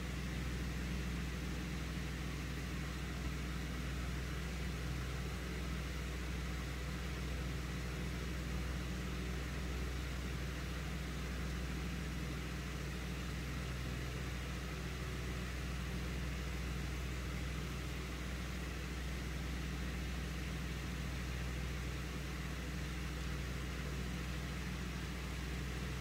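Steady low hum with an even background hiss, and one faint click about three seconds in.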